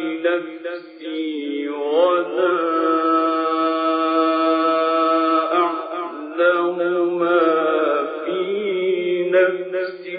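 A man's voice reciting the Qur'an in the drawn-out, melodic tajweed style: an ornamented phrase rises into a long held note lasting about three seconds, then a further wavering phrase trails off near the end. The recording is old and muffled, its high end cut off.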